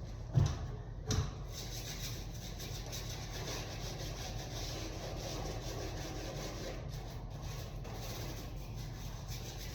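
Steady brush scrubbing inside an HVAC wall unit, with two short knocks in the first second or so.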